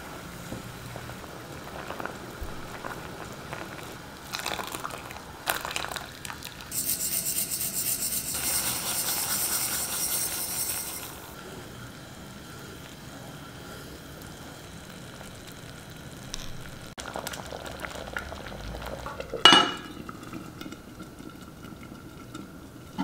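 Red-sugar syrup with red dates and ginger simmering in a clay pot, stirred with a wooden spoon, with light scraping clicks; in the middle a few seconds of louder sizzling hiss. Near the end one sharp knock as the clay lid is set on the pot.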